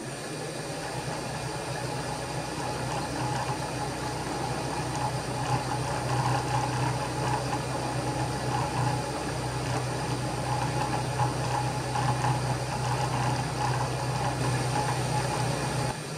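Milling machine running steadily as a 10 mm end mill side-cuts a keyway in a metal mounting foot: an even motor-and-spindle hum with a thin high whine and a hiss of cutting noise over it. The low hum falls away just before the end.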